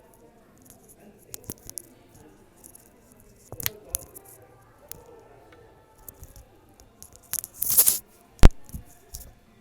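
Scattered rustling and light clicks of close handling noise, with a longer burst of rustling and a single sharp knock about eight seconds in.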